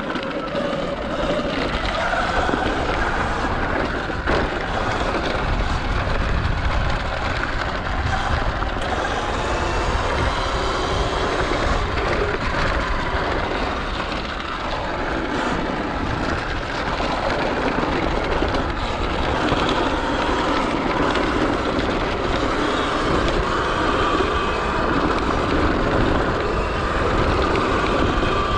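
Sur Ron X electric dirt bike being ridden: a faint electric motor whine rising and falling with speed over a steady, rough rumbling noise.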